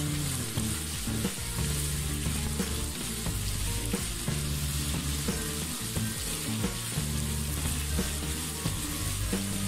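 Diced chicken and chopped vegetables sizzling steadily in hot oil in a frying pan, with low background music underneath.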